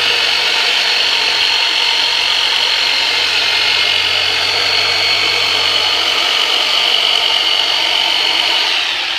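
Modified Black & Decker jigsaw used as a massager, running steadily with a loud buzz as it is worked over the back muscles for myofascial release. The buzz eases off just before the end.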